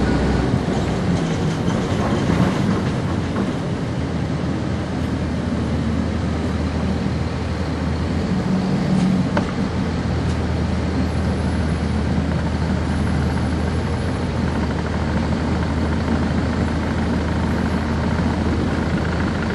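Inside the cabin of a 1999 NovaBus RTS transit bus: its Cummins ISC inline-six diesel engine running under a steady, even rumble of road and body noise.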